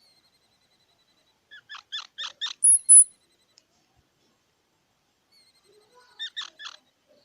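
Squirrel calling in short groups: a quick run of four or five short, harsh calls about a second and a half in, then a loud, high-pitched squeak, and three or four more short calls near the end.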